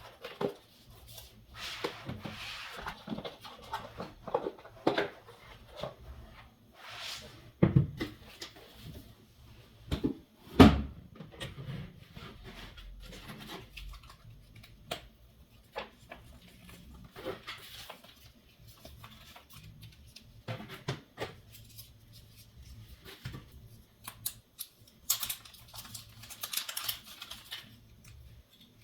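Box and packaging being handled and opened: scattered clicks, taps and rustles, with two louder thumps about eight and eleven seconds in and a longer burst of rustling near the end.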